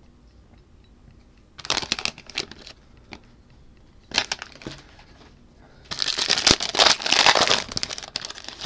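Plastic trading-card pack wrapper crinkling as it is opened: two short bursts, then a longer, louder stretch of crinkling about six seconds in.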